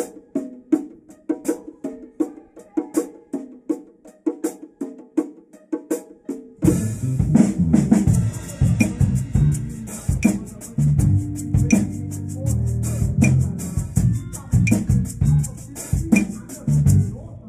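Live pit-orchestra Latin music led by hand percussion, with claves and hand drums among the instruments. At first it is sparse, evenly spaced taps over low notes. About six and a half seconds in, the full band comes in much louder, with a strong bass line and dense fast ticking on top, and it drops away just before the end.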